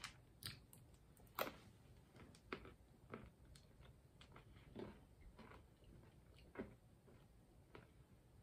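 A person chewing a mouthful of trail mix: faint, irregular crunches, the sharpest about one and a half seconds in.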